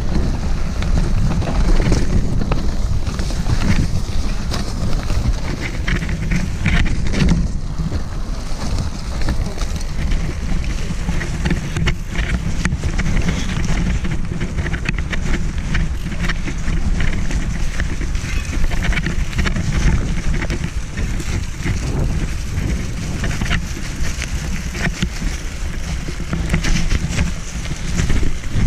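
Mountain bike ridden fast down a dirt forest trail: a steady low rumble of wind on the microphone, with tyres on dirt and frequent sharp clicks and rattles from the bike going over roots and bumps.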